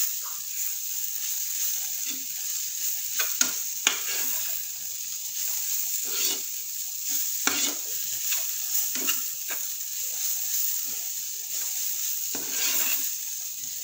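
Spatula scraping and stirring a coarse ground green pea and spice mixture in a nonstick frying pan, with irregular strokes and a few sharp taps. Under it runs a steady sizzle from the mixture frying on the heat.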